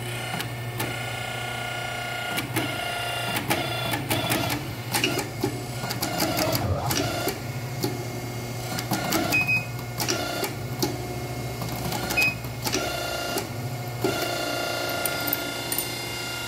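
Hydraulic hose crimping machine running: a steady motor hum with a whine above it, broken by many irregular clicks and metallic knocks as a fitting is crimped onto a hydraulic hose. The clicks come thickest in the middle stretch.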